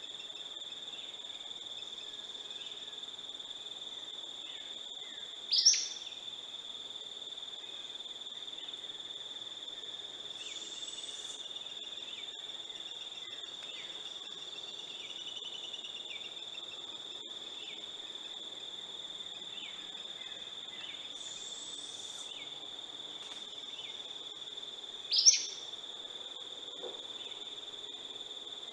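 Insects keep up a steady, high-pitched drone throughout. Over it come two short, sharp bird calls, one about six seconds in and one a few seconds before the end, and fainter calls between them.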